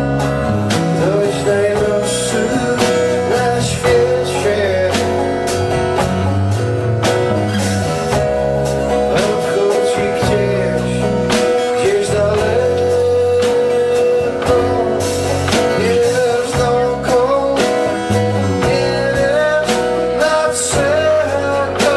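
Live band music: a strummed acoustic guitar with an electric guitar and a drum kit, a slow song with a held, wavering melody line over the chords.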